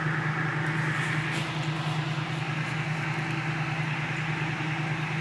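A steady low hum with a hiss of noise above it, with no change in pitch or level.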